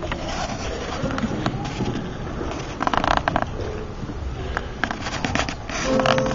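Murmur, rustling and shuffling of children and audience in a hall, with scattered clicks and knocks and a brief pitched sound about three seconds in. Piano music starts right at the end.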